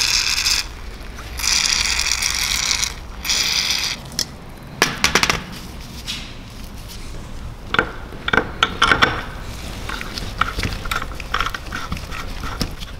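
Three short hissing bursts in the first four seconds, then scattered metallic clicks and taps as a part is fitted into a BMW S54 Vanos valve body by hand.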